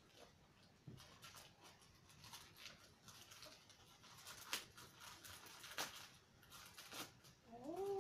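Faint rustling and crinkling of a plastic courier mailer bag as it is pulled and torn open by hand, with scattered small crackles. Near the end a short rising-then-falling call.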